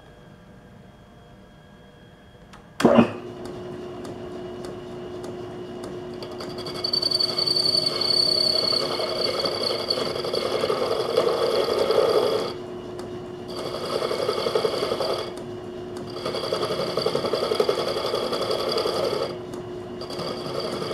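Metal lathe starting with a knock about three seconds in, then the spindle running with a steady hum while the tool bit cuts the spinning workpiece in rough, chattering stretches of a few seconds each. The cut is chewing up the tool bit.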